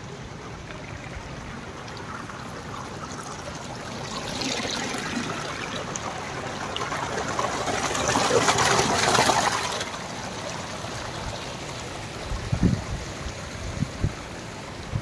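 A small hillside stream of water spilling and splashing over rocks, growing louder to a peak about two-thirds of the way through, then fading again.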